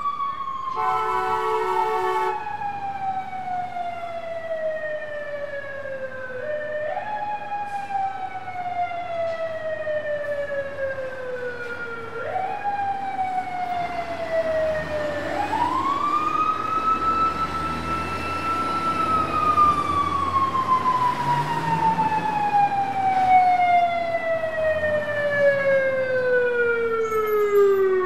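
Fire truck siren winding down in long, slow falling glides. It is spun back up three times, and the last rise is held high for a few seconds before a long fall that dies away at the end. A short horn blast sounds about a second in.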